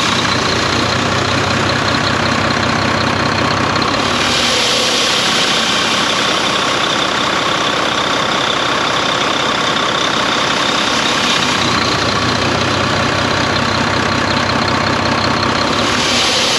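Volvo D13 diesel engine idling and surging up and down, with a windy, breezy rush that swells with the surges, changing about four seconds in, again near twelve seconds and near the end. The owner traces the windy noise to an air leak from a seal that was left out after repair work.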